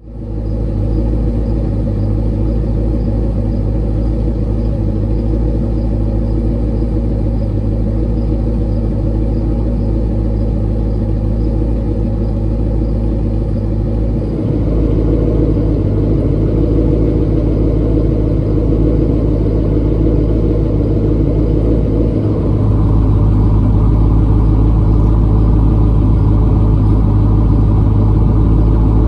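Exhaust of a 2002 Camaro SS's LS1 V8 idling with a steady low rumble. It gets louder in two sudden steps, about halfway and about three-quarters of the way through.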